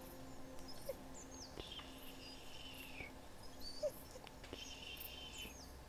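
Two drawn-out, high-pitched animal whines, each about a second long, the first falling away at its end, with short falling bird chirps and faint steady low tones behind.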